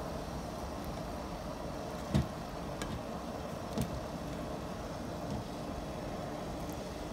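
Whole vegetables dropped one at a time into a pot of simmering mutton broth: three plops, the first about two seconds in the loudest, over a steady low noise.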